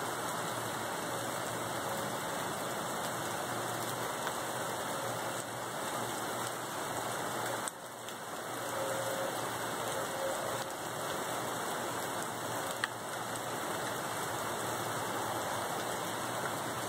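Steady rain falling, an even hiss with no thunder, dipping briefly about eight seconds in, with a faint click near the end.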